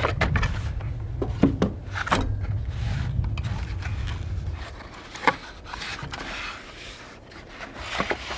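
Parts of a rotisserie skewer set being handled and set out: a few sharp knocks and clacks with rubbing and scraping in between, over a low rumble that fades out about halfway.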